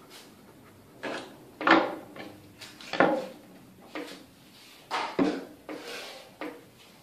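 Plastic spring clamps and a glue bottle clattering and knocking as they are handled and set down on a plywood worktable: about eight sharp knocks, the loudest a little under two seconds in and at three seconds.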